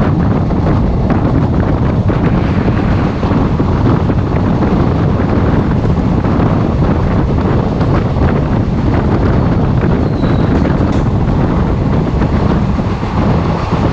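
Wind rushing over the microphone at an open train door, over the steady rumble of a train running on track, as a rake of BTPN tank wagons passes close by on the adjacent line.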